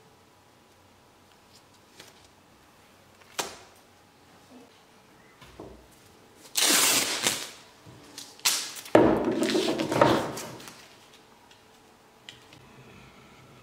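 Masking tape being pulled off the roll in two noisy rips, the first about a second long and the second about two seconds long, with a single sharp click a few seconds before them.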